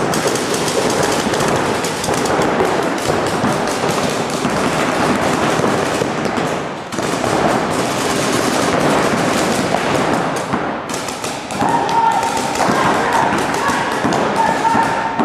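Paintball markers firing fast strings of pops from several players at once, with shots hitting bunkers. Players shout near the end.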